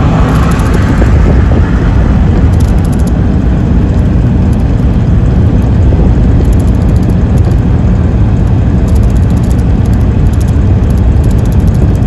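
Steady low rumble of a vehicle in motion, heard from inside it, even in loudness throughout.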